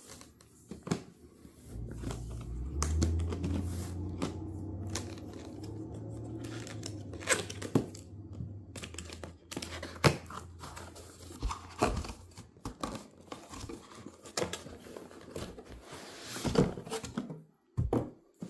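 Cardboard box being opened by hand: flaps and packaging tearing, rubbing and crinkling, with scattered sharp clicks and taps. A low steady rumble runs through roughly the first half.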